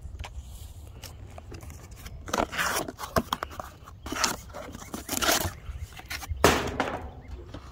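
A cardboard box being opened by hand: the flaps and a paper insert being pulled back, scraping and rustling in about four short bursts with small clicks between, the loudest near the end.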